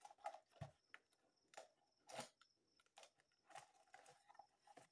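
Faint, scattered crackles and rustles of a small cardboard box being handled and opened, with a slightly louder crinkle about two seconds in.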